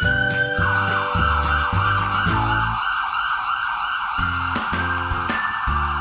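Background music with a steady bass beat, and a wavering, siren-like wail held above it.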